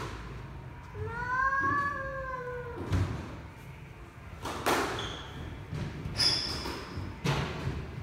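Squash ball knocking off racket and walls, a few sharp knocks one to two seconds apart, with a brief high shoe squeak on the court floor. Early on, a drawn-out call rises and then falls in pitch.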